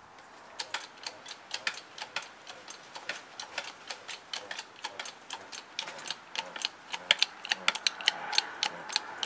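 Hydraulic bottle jack being pumped by its lever in a homemade brick press, compressing wet wood-chip pulp: a quick, even run of sharp mechanical clicks, about four a second, starting about half a second in and growing louder towards the end.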